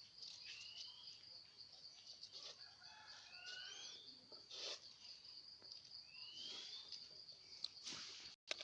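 Faint bird calls: a rising whistle repeated about three or four times, with a few short chirps, over a steady high-pitched hum.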